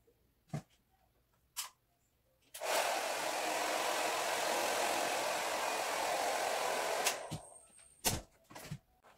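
Handheld hair dryer switched on about two and a half seconds in, blowing steadily for about four and a half seconds, then cut off, followed by a brief high whine. A few sharp clicks and knocks come before and after as things are handled.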